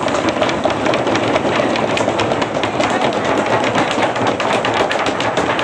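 A room full of people drumming their hands on the tables, a fast, dense patter of knocks that keeps up at a steady level: a table drumroll given as applause.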